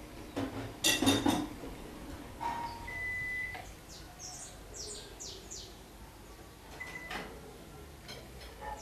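Outdoor garden ambience: a brief clatter of light clinks about a second in, then a quick run of short, high chirps from a small bird around the middle.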